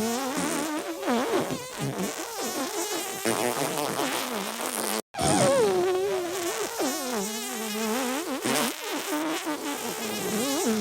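Looped, edited fart and sneeze sound effects layered with music, the pitch wobbling up and down throughout; the sound cuts out for an instant about five seconds in.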